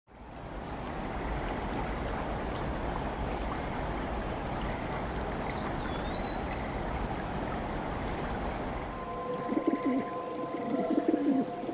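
Rock pigeons cooing, low warbling calls that start about nine seconds in. Before them a steady outdoor hiss, with one short high bird chirp about five and a half seconds in.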